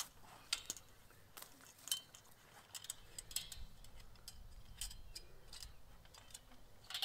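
Faint metallic clicks and clinks from a fence wire stretcher being worked to tighten high tensile fence wire, with a louder click and a short metallic ring near the end.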